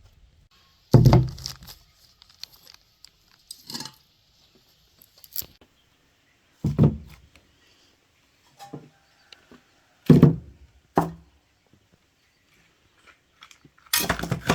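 Tools and metal parts being handled during a motor repair: four heavy knocks about three to four seconds apart, each followed by a short scrape or rattle, with lighter clicks between them.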